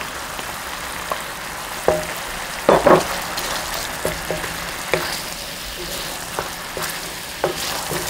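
Gochujang and soy sauce bubbling and sizzling in a stainless steel pan as garlic cloves are added and stirred through with a spatula. It is a steady hiss with scattered knocks and scrapes of the spatula against the pan, and the loudest clatter comes about three seconds in.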